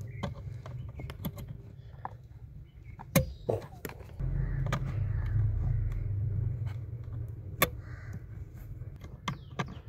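Wiring-harness connectors being pushed into a Kia Sportage body control module, with several sharp clicks as the connector locks latch, amid handling rustle and a low rumble for a couple of seconds midway.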